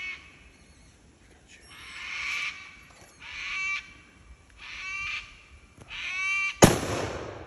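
A series of four drawn-out animal calls, about one every second and a quarter, the last falling in pitch. Near the end comes a single sharp, loud bang with a short ringing tail.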